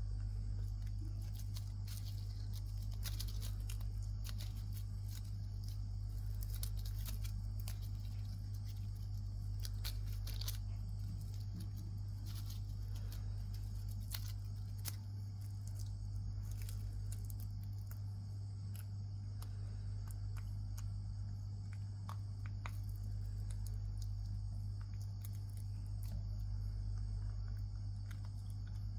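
A baby macaque chewing and pulling apart a cicada, making scattered small crunches and crackles from the insect's shell and wings. Underneath runs a steady low hum and a steady high whine.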